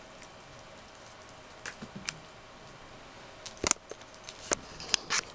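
African pygmy hedgehog eating off a plate: a string of sharp clicks and crunches from its biting and chewing, a few about two seconds in, the loudest just before four seconds, and several more near the end.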